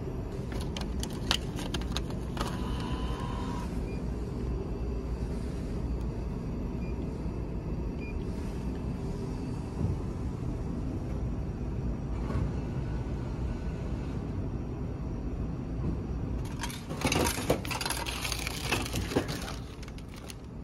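Frozen-meal vending machine in use: a few sharp clicks and a short beep in the first few seconds, then, about three-quarters through, a few seconds of clattering and crinkling as the plastic-wrapped meal comes out of the dispensing outlet. A steady low rumble sits under it all.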